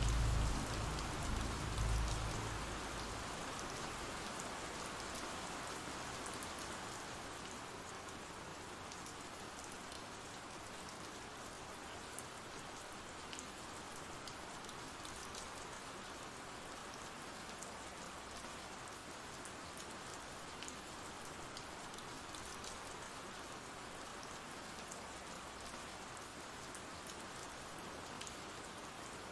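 Steady ambient rain: an even hiss of rainfall with scattered drop ticks. A low rumble fades out over the first few seconds.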